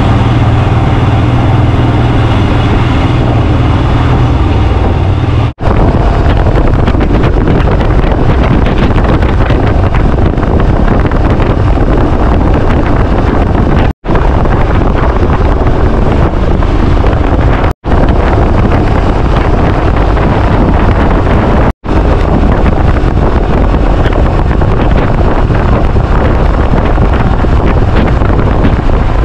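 Royal Enfield motorcycle on the road, heard from a chest-mounted camera: the engine runs low and steady for about the first five seconds, then a heavy rush of wind on the microphone at riding speed covers it. The sound cuts out for an instant four times.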